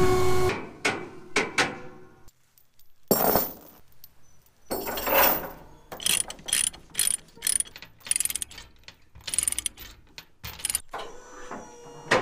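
Ratchet chain load binder being cranked tight on a trailer tie-down chain: a run of sharp ratchet clicks, about two strokes a second, after a couple of louder rattles of chain. A steady hum begins near the end.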